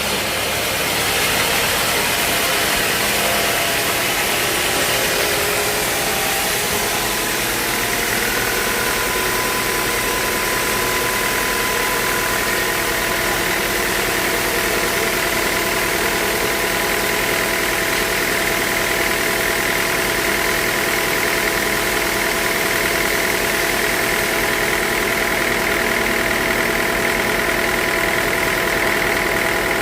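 Sawmill running steadily, sawing a teak log. A steady whine sets in about eight seconds in, and a hissing band grows stronger near the end.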